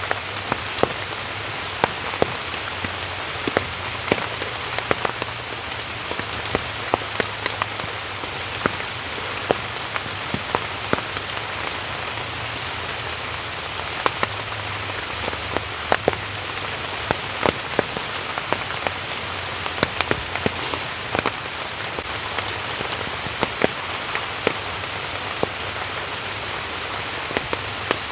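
Steady rain falling, an even hiss with many sharp individual drop impacts scattered irregularly over it.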